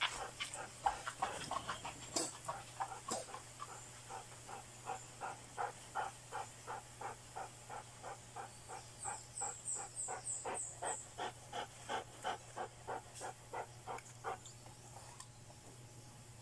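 Dog panting in a steady rhythm, about three breaths a second, fading out near the end.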